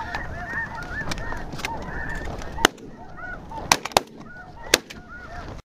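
Snow goose calls: many high honks from a large flock overlapping without a break, thinning out about halfway through. Several sharp cracks cut in during the second half, the loudest about halfway.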